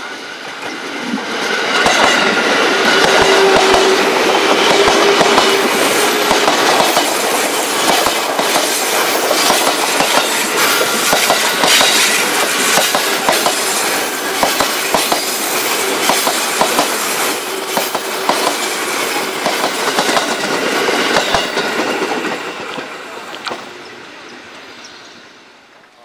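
A train passing close by, its wheels clacking over the rail joints amid a steady rumble. The noise builds over the first couple of seconds and fades away near the end.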